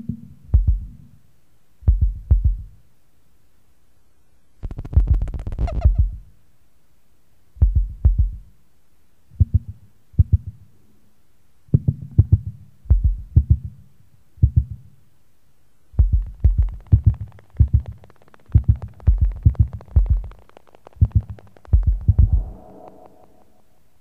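Noise music played from a cassette: clusters of low thumping pulses come in irregular groups, with short gaps of faint hiss between them. Some clusters carry a harsher, higher crackle, and near the end a pitched tone joins the thumps.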